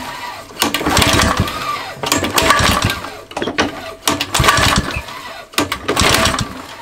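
Mountfield Emblem lawn mower's two-stroke Tecumseh engine being pull-started: several recoil-starter pulls about every one and a half seconds, each a short burst of cranking. The engine turns over on a squirt of flammable spray but does not catch.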